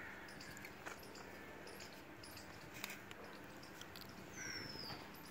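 Quiet outdoor background with a few faint clicks, and a short high falling chirp from a bird about four and a half seconds in.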